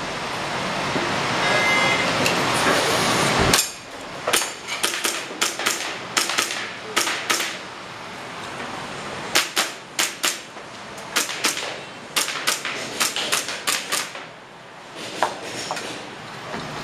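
Airsoft pistol firing in rapid strings of sharp cracks, with short pauses between strings, during a timed practical-shooting stage. Before the shooting starts there is a steady rushing noise, which cuts off sharply about three and a half seconds in.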